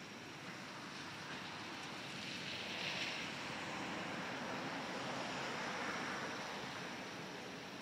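Hiss of tyres on wet tarmac, swelling twice, about three seconds in and again around six seconds, over a steady background of noise.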